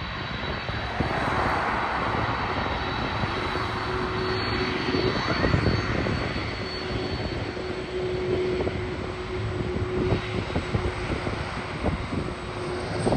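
Boeing 747-400 jet engines running, a steady rushing noise with a faint steady hum underneath.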